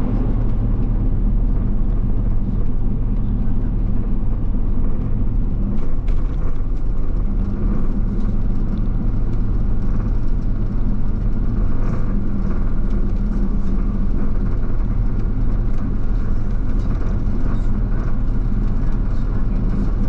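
Steady engine and road noise heard from inside a moving bus, a low hum that holds even throughout.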